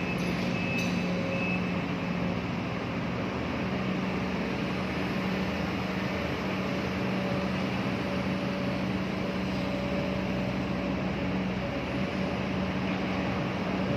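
Excavator's diesel engine running steadily, with a constant low hum over an even mechanical noise.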